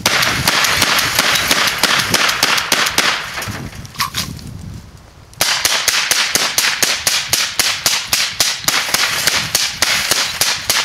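A rapid, evenly spaced series of sharp cracks, about four a second, stopping for about a second some four seconds in and then starting again.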